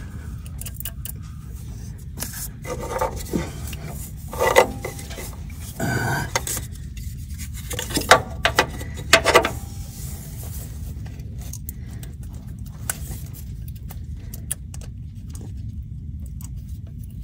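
Clinks, scrapes and rattles of a hand working metal parts and wiring around a truck engine's NOx sensor connector. They come in two busy spells, with the sharpest clinks a little past the middle, over a steady low hum.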